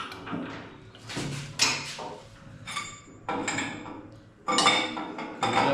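Steel hydraulic ram for a car hoist being lowered down inside the hoist post: a series of irregular metal knocks and scrapes, some with a brief ring, as it is eased in against resistance.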